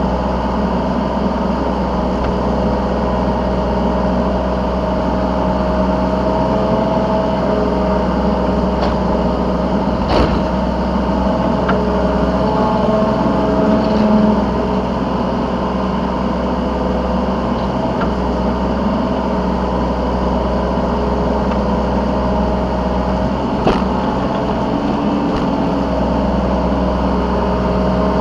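Yanmar B3 Sigma mini excavator's diesel engine running steadily while digging and loading, with a few sharp knocks about ten seconds in and again near the end.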